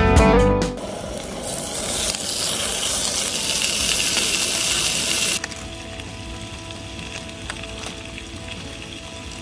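Bacon strips sizzling in a cast iron skillet on a camp stove: a steady frying hiss that starts about a second and a half in and cuts off abruptly a little past the middle.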